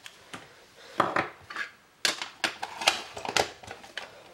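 Craft tools and hard plastic items being handled on a desk: a series of short clicks, taps and light clatters, with some rustling, as things are set down and picked up.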